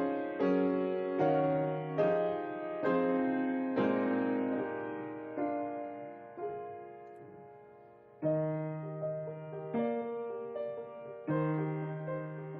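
Background piano music: slow struck chords and melody notes, fading to a soft dip about eight seconds in before a new chord enters.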